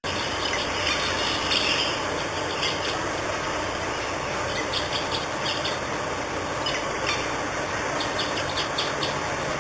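Birds chirping in short scattered bursts over a steady, even rushing background noise, which starts abruptly as if cut in as an added ambience track.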